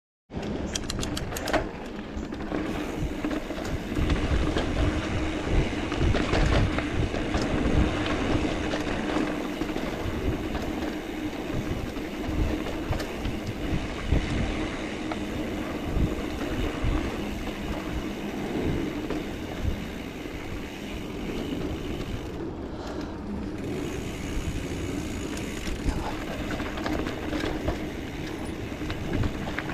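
Mountain bike rolling over a dirt trail: steady tyre rumble with constant rattling and knocking of the bike over bumps.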